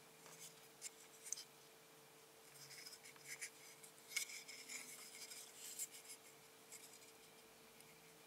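Faint handling noise of an Arduino Mega circuit board being turned over in the fingers: soft rubbing with a few light clicks, busiest around the middle, over a steady faint hum.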